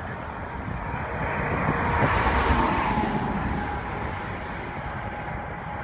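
Steady vehicle running noise that swells about two seconds in and then eases off, with a faint steady whine under it.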